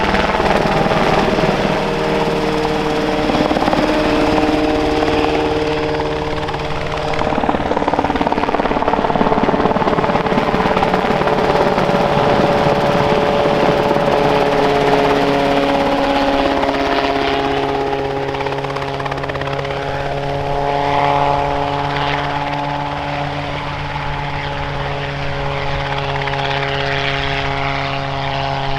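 Rotorway-type two-seat kit helicopters flying low overhead and hovering: steady piston engine and rotor noise with a sustained drone, its pitch shifting a few times as the aircraft pass.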